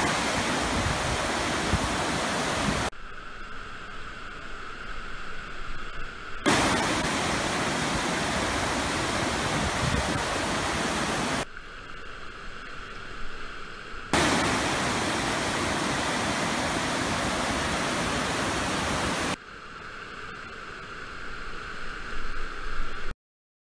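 Whitewater rapids rushing, heard through a string of cut-together clips: loud full rushing stretches alternate with quieter, thinner stretches of water noise at each cut, and the sound stops abruptly near the end.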